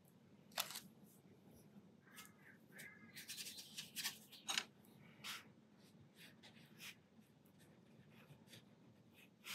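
Faint, scattered small taps and brushing scrapes of a watercolour brush being handled and worked in paint, with near quiet in between.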